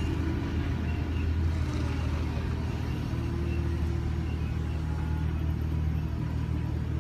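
Large forklift running as it drives and turns, a steady low hum with a slightly higher tone joining about five seconds in.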